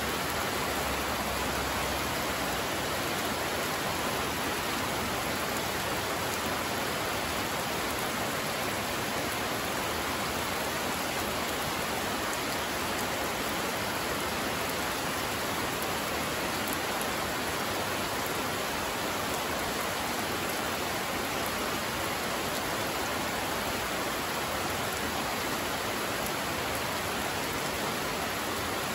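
Steady rain falling on dense leafy vegetation: an even, unbroken hiss of drops that holds at one level throughout.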